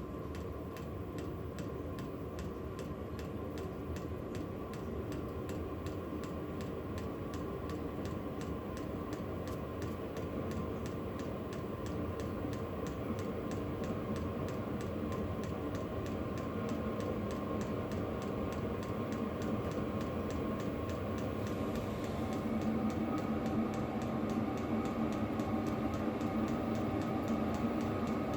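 Chinese diesel air heater running: its fuel pump ticks in a steady rhythm over the whir of the blower. The whir gets gradually louder, and a deeper hum comes in about twenty seconds in.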